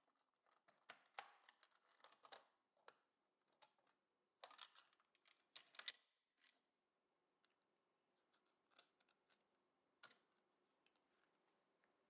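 The plastic front cover of a Ranco ETC digital temperature controller is handled and swung open by hand: a run of plastic clicks, scrapes and knocks in the first half, then a few faint ticks.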